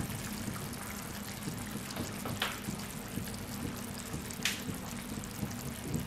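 Prawn curry in coconut milk simmering in a pan on low heat, a soft steady bubbling with two brief sharper pops about two seconds apart, over a steady low hum.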